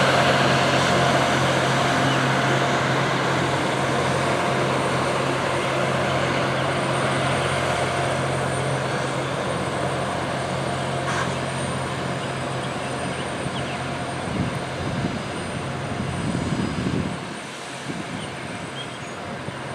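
Loram rail grinder train at work: a steady, loud grinding rush from the grinding stones on the rails, over the constant low hum of its F40PH locomotive's engine, slowly fading as the train moves away.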